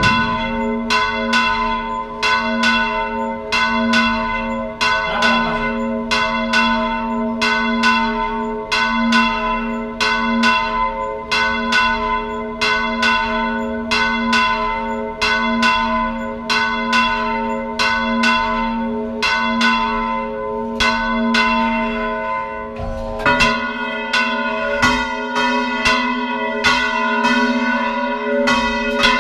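Church bells swung full circle by hand, Spanish volteo style, each striking about once every three-quarters of a second over a steady ringing hum. About 23 seconds in, the ringing grows fuller and brighter.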